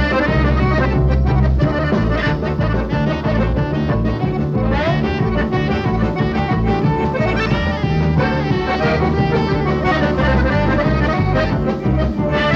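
A live band plays an instrumental with an accordion to the fore, backed by drums, bass and a saxophone.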